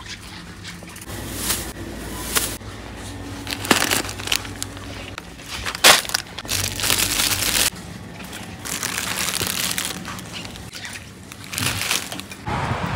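Crinkling plastic food packaging and clatter from a wire shopping cart as groceries are handled, with scattered clicks and knocks over a low steady hum. The hum stops about two-thirds of the way through.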